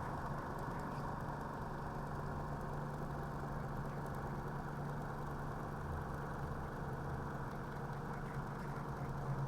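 Homemade 3D-printed motor-generator running steadily, a continuous machine whirr with a steady low hum.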